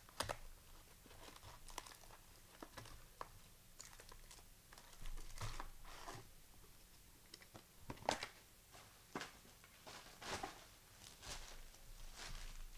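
Wrapping and packaging of a basketball card box being torn open and handled: faint, irregular crinkles and short rips of plastic and cardboard, with the sharpest one about eight seconds in.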